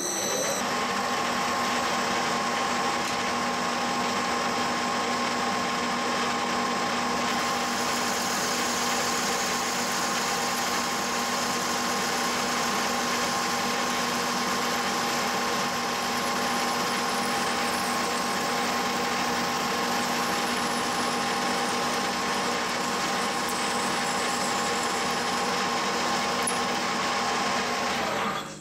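Small hobby lathe running at 500 RPM with a steady whine, a rear-mounted parting blade cutting a slice off an aluminium bar under flood coolant. It starts right at the beginning and shuts off near the end.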